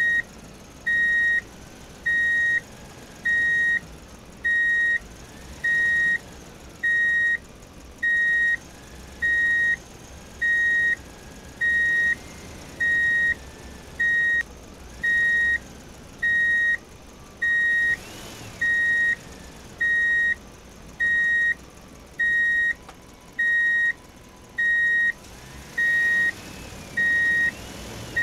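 Electronic reversing-alarm beep repeating evenly, a single high tone about every 1.2 seconds, each beep about half a second long. Faint wavering whines sit underneath, with a short rustling noise about two-thirds of the way through.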